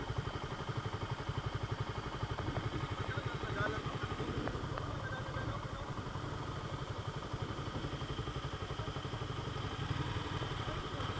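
Motorcycle engine idling steadily, a low, even pulsing.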